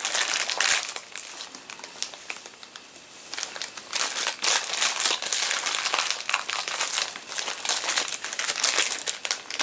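Plastic packaging crinkling and crackling as hands work a Beyblade layer out of its wrapping, quieter at first and busier from about four seconds in.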